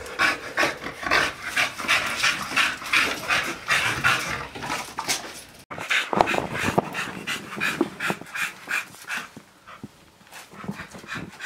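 American Bully dogs panting rapidly, about three breaths a second, growing softer in the last few seconds.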